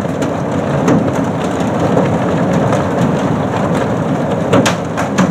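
Thunder rumbling through heavy, clattering rain, with a few sharp clicks of drops striking a surface about a second in and near the end.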